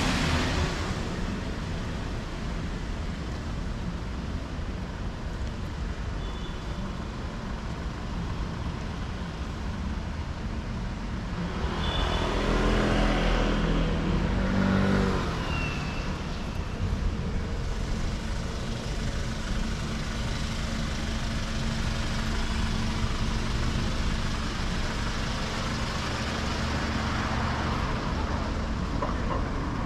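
Busy city street traffic: a steady hum of car and bus engines and tyres. About halfway through, a vehicle passes close and is louder for a few seconds.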